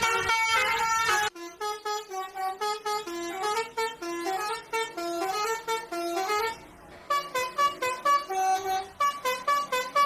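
Basuri 'telolet' musical bus horn playing a melody of stepped horn notes, one after another. It breaks off briefly about seven seconds in, then the tune picks up again.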